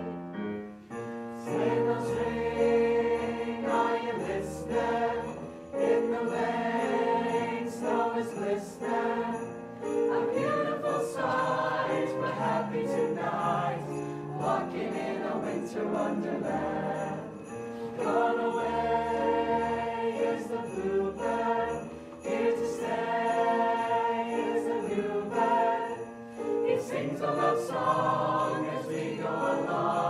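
Mixed-voice show choir singing a holiday song, with sleigh bells jingling steadily in the accompaniment.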